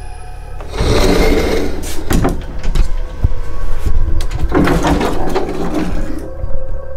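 Bifold closet doors being pulled open about a second in, then pushed shut again near the five-second mark, over a steady low hum.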